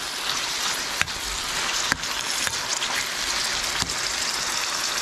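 Pieces of chicken breast frying in hot oil in a frying pan, a steady sizzle with a few sharp ticks about 1, 2 and 4 seconds in.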